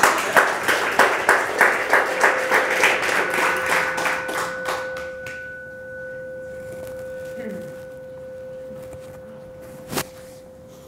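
Audience clapping in a steady rhythm, about three claps a second, dying away after about five seconds. A steady, pure ringing tone sets in during the clapping and holds to the end, with one sharp click near the end.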